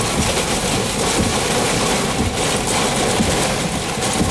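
Strong rear-flank downdraft winds and wind-driven heavy rain beating on the car, a steady loud rush.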